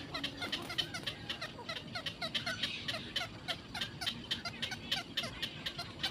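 Black-crowned night heron nestlings giving a rapid, continuous chatter of short, high calls, several a second and overlapping from more than one bird: begging calls from chicks in the nest.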